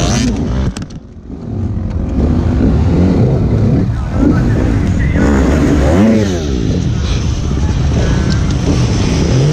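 Enduro motorcycle engines revving in short bursts, the pitch climbing and falling again several times, as bikes struggle over a tyre obstacle. The sound drops off briefly about a second in and then picks up again.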